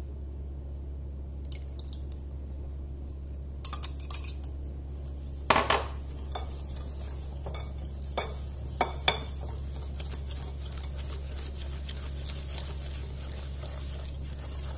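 A spoon clinking against a glass mixing bowl several times, then stirring and scraping through a thick mix of semolina and curd in the bowl from about two-thirds of the way in. A steady low hum runs underneath.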